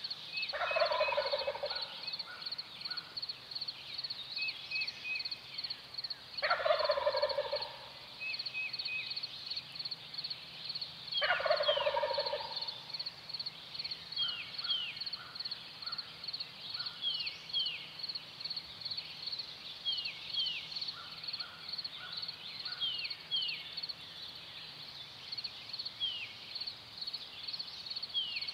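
Wild turkey gobbler gobbling three times, each rattling gobble about a second long and about five seconds apart. A steady high insect trill and small bird chirps run underneath.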